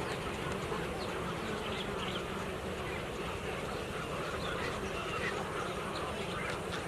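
Steady din of a large flock of birds calling all at once, many short calls overlapping.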